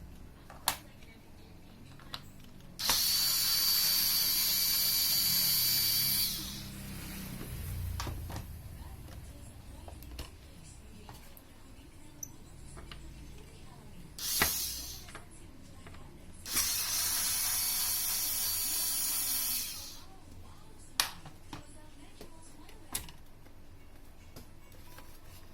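Power drill running in two steady bursts of about three and a half seconds each, with a high whine in the first that dies away as the motor spins down. Sharp clicks of handling fall between the runs.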